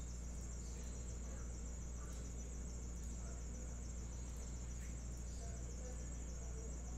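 Steady background noise: a constant low electrical hum with an unbroken high-pitched whine over it, and no distinct events.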